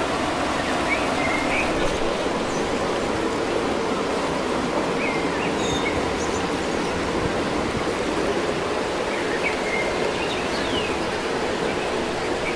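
Steady, even rushing outdoor ambience, with a few short bird chirps scattered through it.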